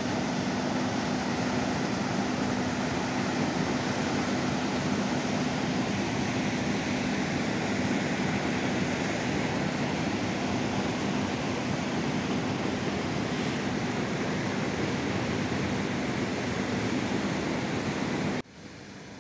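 Fast river water rushing over rocky rapids, a loud, steady rushing that stops abruptly near the end.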